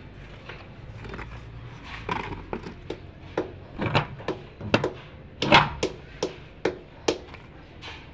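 Sharp metallic clicks and clacks from a steel gate's latch hardware and handle being worked by hand: an irregular run of knocks, coming thicker and louder in the second half.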